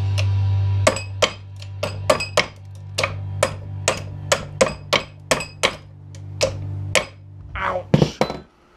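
Hammer striking a circuit board braced against a steel bench vise: a run of about twenty quick, sharp blows, roughly three a second, each with a short metallic ring.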